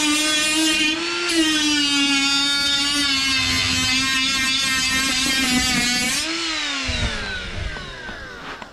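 Cordless Milwaukee die grinder with a flap disc running at a steady whine while grinding through the folded hem of a steel door skin; about a second in its pitch dips and then picks back up. Near the end the trigger is let go and the motor winds down in a falling whine.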